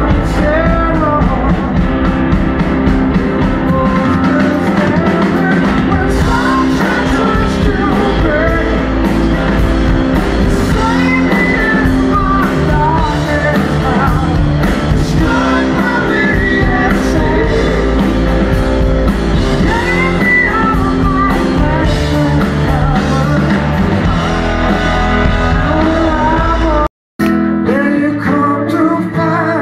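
Live rock power trio playing a song: electric guitar, bass guitar and drum kit under a male lead vocal. About 27 seconds in it cuts off abruptly and a solo acoustic guitar with singing begins.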